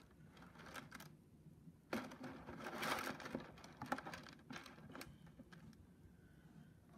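Faint handling noises of a moss ball being put into an aquarium by hand: scattered light clicks and knocks, with a short stretch of rustling about two to four seconds in.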